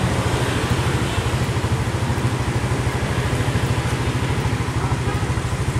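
A motor vehicle engine idling close by: a steady, fast, low throb with street noise behind it.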